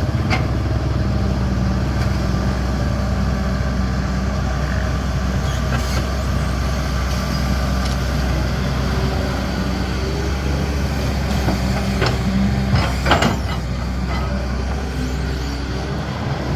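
Caterpillar 320D excavator's diesel engine running steadily, with occasional sharp knocks, the loudest a pair about twelve to thirteen seconds in.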